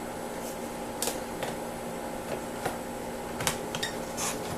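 Scattered small clicks and scrapes of a small flat-blade screwdriver prying at plastic trim on a 2003 Toyota Camry's interior door panel, over a steady background hum.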